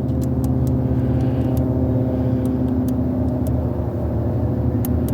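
A steady low mechanical drone throughout, with scattered light metal clicks as a 9/32 socket is fitted to a ratchet and tried on a hose-clamp screw.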